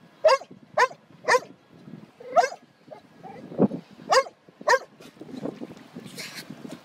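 A yellow Labrador retriever barking: about half a dozen short, sharp barks in an uneven run, aimed at a dolphin surfacing beside the boat.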